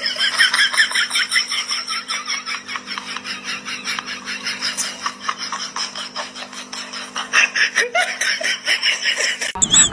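A person laughing hard and without a break in a high-pitched, rapid giggle, several bursts a second.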